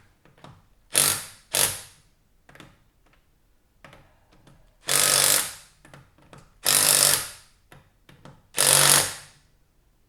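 Impact wrench hammering on a wheel's lug bolts in short bursts. There are two brief bursts about a second in, then three longer ones of under a second each, spaced a little under two seconds apart.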